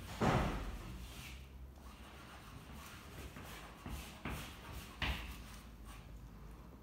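Soft pastels scraping and rubbing across a fabric sheet on a wall, in a few short rustling strokes, the loudest just after the start.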